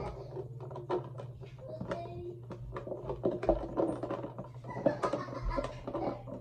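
Light plastic clicks and taps of toothbrushes being handled in a plastic toothbrush holder, over a steady low hum.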